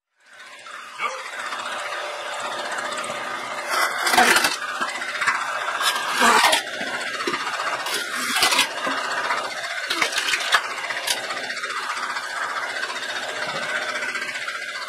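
Homemade belt-driven wood-cutting machine, a small circular blade spun by an electric motor, running steadily, with about five louder bursts as a thin wooden pole is pushed into the blade and cut through.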